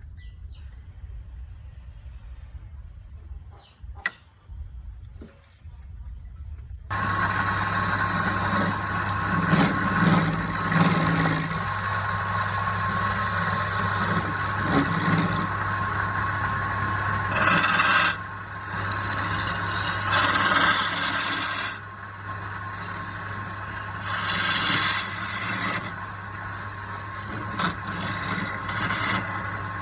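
Light clicks and handling noises, then about seven seconds in an electric woodworking machine starts abruptly and runs with a steady hum. Rubbing and scraping noise swells and fades over it as the tool works the wood.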